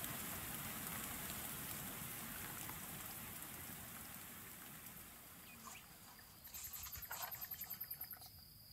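Faint steady rain sound effect that fades out over the first half. About six and a half seconds in comes a short burst of rapid, even chirping, about eight pulses a second, lasting under two seconds.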